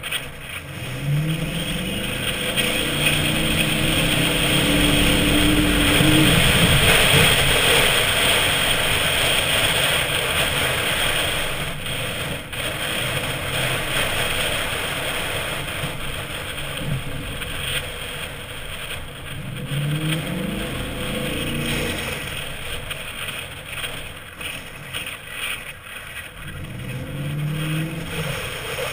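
Chevy Avalanche V8 with a Flowmaster exhaust revving up as the truck accelerates through soft sand, with three throttle pushes: about a second in, about two-thirds of the way through and near the end. A steady rushing noise runs under the engine and peaks a few seconds in.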